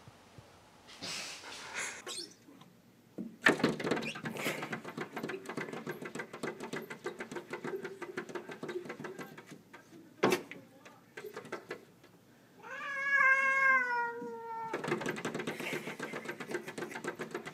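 A cat vocalising: several seconds of rapidly pulsing sound, a sharp click about ten seconds in, then one long wavering meow of about two seconds that falls slightly in pitch, followed by more pulsing sound.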